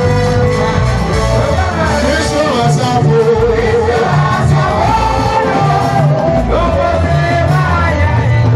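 Loud music with singing over a steady bass line; the voice holds a wavering note about three seconds in.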